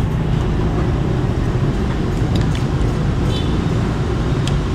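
Steady rumble of city street traffic, with a few faint clinks of a metal fork and spoon on a plate.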